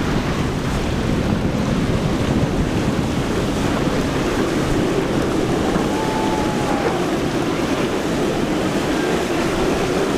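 Outboard engines of center-console boats running at speed through chop, their drone mixed with the rush of wake spray and surf, and wind buffeting the microphone. A faint whine rises and falls about six seconds in.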